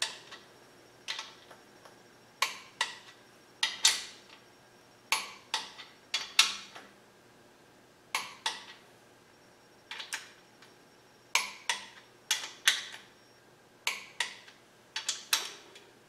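Click-type torque wrench on the main bearing cap bolts of a small-block Chevy 350, breaking with a sharp metallic click as each bolt reaches the set torque of about 30 ft-lb. The clicks come mostly in close pairs, about every one to one and a half seconds.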